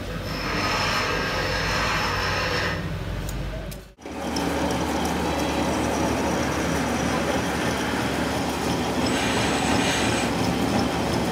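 A metal lathe runs with a tractor trolley rear axle spinning in it, making a steady mechanical hum with a grinding hiss. A higher hissing noise rises over it for a couple of seconds near the start and again near the end. The sound breaks off for a moment about four seconds in.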